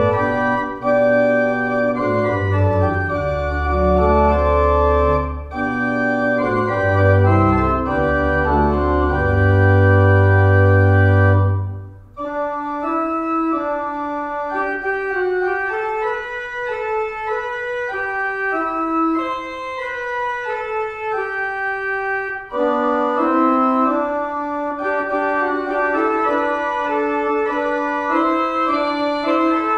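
Organ music: slow sustained chords over a deep pedal bass. About twelve seconds in, the pedal drops out after a brief dip, and a lighter passage follows. It grows fuller again past twenty seconds.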